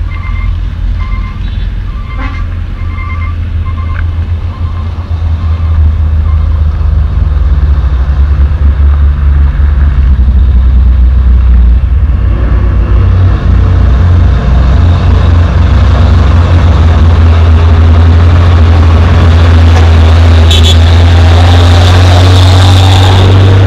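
Hino dump truck's diesel engine approaching, its low drone growing steadily louder and rising slowly in pitch until the truck passes close near the end. A run of short beeps sounds in the first few seconds.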